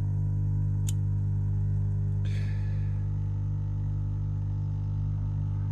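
Beko dishwasher pump motor running with a steady low hum, set off by the flood-protection float switch in the base tray being held down: the same constant pump running that water collected in the base tray causes. A single sharp click about a second in.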